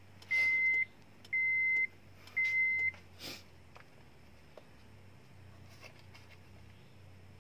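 Electronic buzzer of an aftermarket push-button start kit beeping a steady high tone, about one half-second beep a second, stopping about three seconds in, followed by a single click. This is the relay signalling that the chip sensor has lost the key chip and the car can be left parked and locked.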